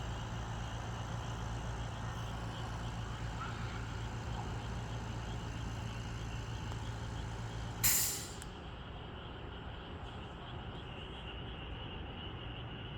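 A steady low engine hum, then a short loud hiss about eight seconds in, after which the hum drops away.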